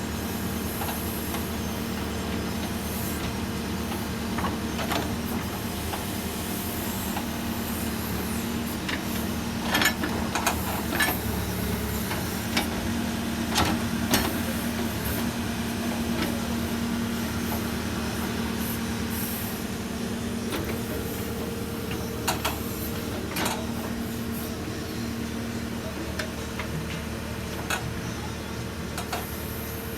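Case 770FX backhoe loader's diesel engine running steadily, with scattered sharp metallic clanks from the machine at work, bunched together about ten to fifteen seconds in.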